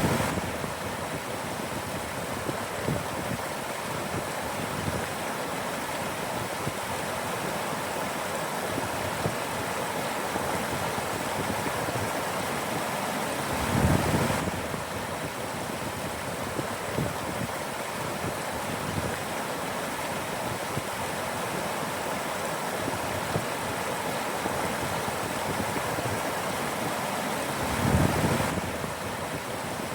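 Mountain stream rushing steadily over rocks. A brief low swell comes about halfway through and again near the end.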